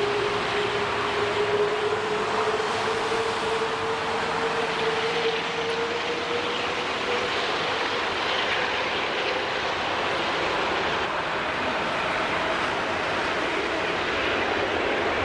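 Jet airliner engine noise: a steady rumble and hiss with a whine that slowly rises in pitch over the first several seconds, then fades.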